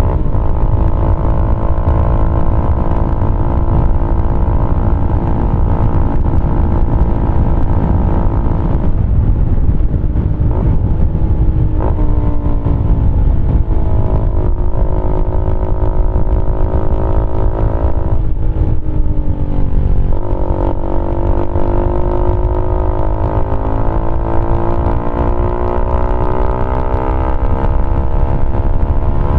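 Keeway RKF 125's single-cylinder engine running through a GPR Deeptone exhaust with the dB killer removed, while the bike is ridden. The engine holds steady revs at first, then from about nine seconds in its pitch repeatedly drops and climbs again with throttle and gear changes.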